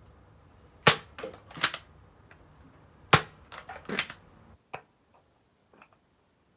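Nerf Elite 2.0 Prospect spring-powered foam-dart blaster firing: two sharp snaps about two seconds apart, each followed by a few smaller clacks.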